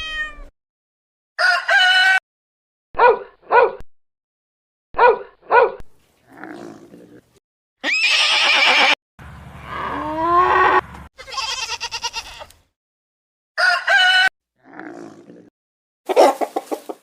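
A string of separate farm-animal calls with short silences between them, about a dozen cries in all. They differ in pitch and shape, so they come from several different animals: some short calls come in pairs, one call rises in pitch, and some are harsh and noisy.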